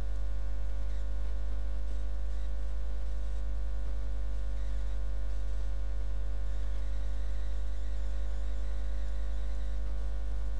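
Steady electrical mains hum: an unbroken low drone with a row of steady higher overtones above it.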